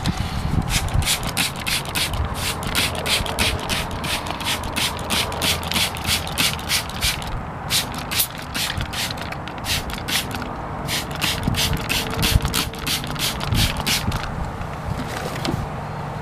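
Hand trigger spray bottle squirting water onto a sanded plastic headlight lens to wet it: quick squirts about three or four a second, in runs with two short breaks, stopping a couple of seconds before the end.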